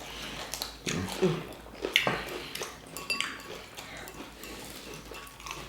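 Cutlery knocking and clinking against dishes at the table, a series of small sharp clicks, with a brief ringing clink about three seconds in.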